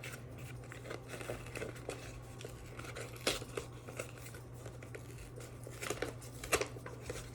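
Paper crinkling and tearing as a black cardstock envelope is opened by hand, in scattered rustles with a couple of sharp crackles, about three seconds in and near the end. A steady low hum sits underneath.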